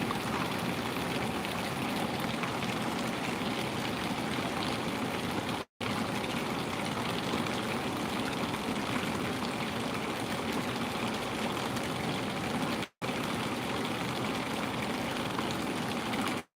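Running water rushing steadily, like a stream or fountain, cut off by brief silent gaps three times.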